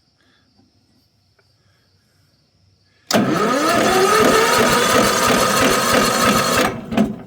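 Small engine being spun over by its electric starter at full throttle without firing. The whirr climbs in pitch as it spins up, holds steady for about three seconds and then cuts off. The engine fails to start.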